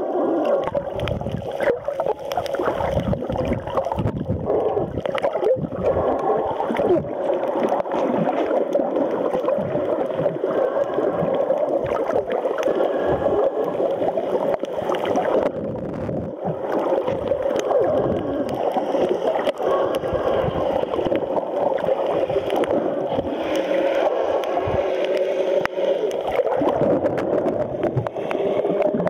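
Muffled underwater noise picked up through a submerged waterproof camera: a steady low churning of water with many small clicks and knocks scattered throughout.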